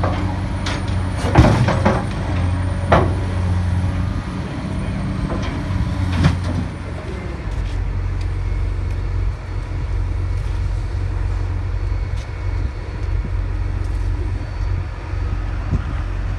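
Caterpillar excavator's diesel engine running steadily at a low hum, with a few sharp knocks in the first six seconds, the loudest about a second and a half in.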